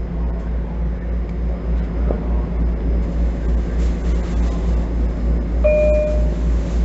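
Steady low hum and air noise inside a standing Bombardier M7 electric commuter rail car. A short electronic chime tone sounds near the end.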